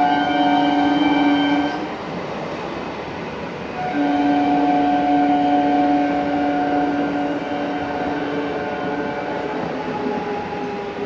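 Local electric train's horn sounding two long steady blasts: the first breaks off about two seconds in, and the second starts about four seconds in and lasts some four seconds. Near the end, fainter, lower horn tones drift slowly down in pitch.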